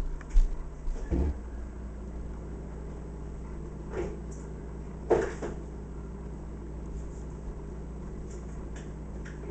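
Steady low hum with a few soft knocks or bumps, the loudest about five seconds in.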